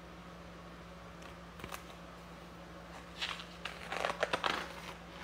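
Paper book pages handled and turned: a few light taps, then a burst of papery rustling about three seconds in, over a steady low electrical hum.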